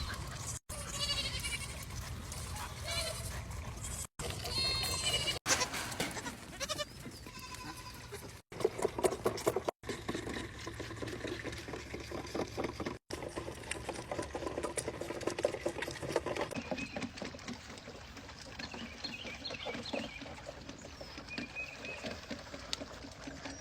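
A run of short animal clips cut together, with bleating calls among them and abrupt breaks between clips.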